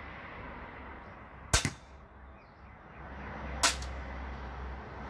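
Homemade twin-shot tactical crossbow with two 110-pound bows firing two shots about two seconds apart from a single cocking: two sharp snaps, the first with a quick second crack right after it.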